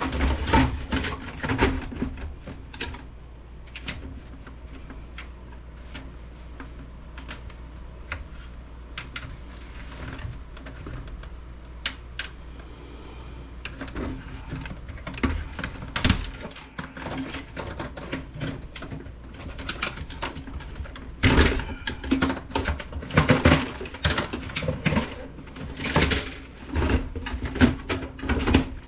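Irregular clicking and clattering of metal and plastic computer parts being handled as a desktop PC case is dismantled, with a steady low hum underneath. The clatter comes in clusters and is busiest near the end.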